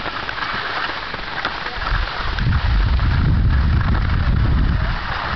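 Skis sliding over packed snow with a steady hiss, and wind buffeting the microphone as a low rumble that gets heavier from about two seconds in.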